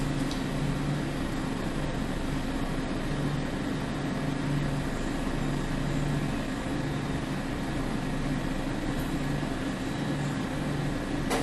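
Steady background hum and hiss of the room, with a low drone that swells and fades every second or so.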